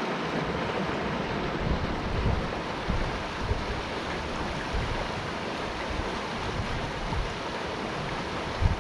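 Steady rush of the Pedernales River spilling through a narrow rock chute into a pool, with gusts of wind buffeting the microphone now and then.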